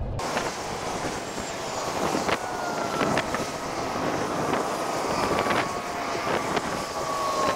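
A distant engine drone whose pitch falls slowly and steadily, as a motor passes, with several sharp clicks over it.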